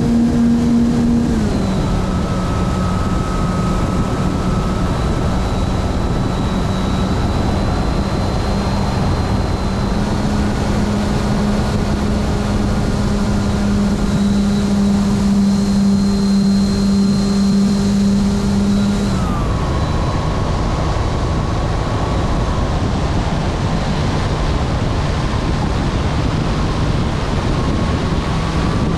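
Radio-controlled model airplane's motor and propeller drone heard from on board, with a steady pitch over strong wind rush. The pitch steps down about a second and a half in, edges up a little about ten seconds in, and drops again near the twenty-second mark.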